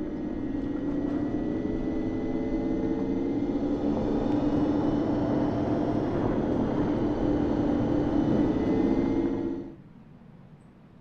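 2025 Alpine A290 electric hot hatch driving with its digital sound effect, a synthesized hum built from the electric motor's harmonics, over tyre and road noise. It grows louder over the first few seconds, holds steady, then cuts off suddenly near the end.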